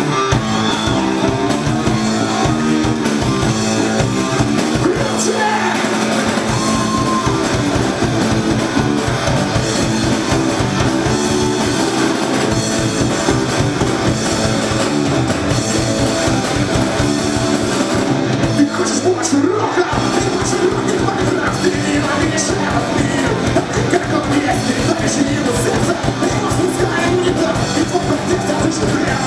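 Punk rock band playing live: electric guitars, bass and drums at a steady beat, with singing.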